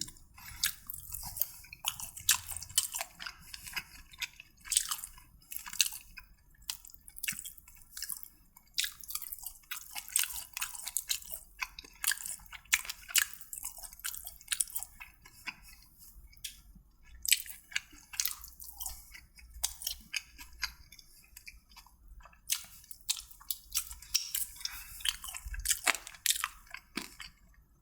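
Close-miked chewing and eating sounds: irregular wet clicks and small crunches as a person eats boneless devilled chicken.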